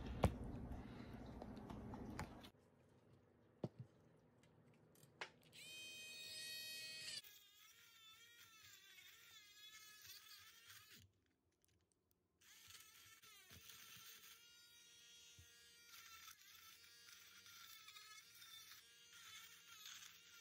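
Faint high-pitched whine of a Dremel rotary tool grinding into fossil shell rock, its pitch wavering as the bit loads up in the hardened sand, after a brief rustle of handling at the start.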